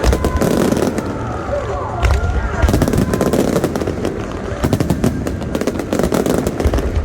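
Aerial fireworks of a finale barrage going off in rapid succession: a dense run of bangs and crackles, with heavier booms at the start and about two seconds in.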